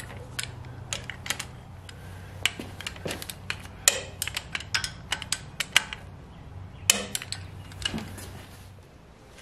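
Irregular metallic clicks of a wrench tightening the rocker arm bolts on a 7.3 IDI diesel's cylinder head, in small clusters around four and seven seconds in, over a faint steady low hum.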